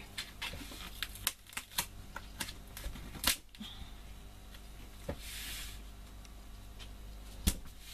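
Kraft cardstock being handled and pressed by hand: a run of light taps and clicks over the first few seconds, a short brushing swish about five seconds in, and a sharp tap near the end.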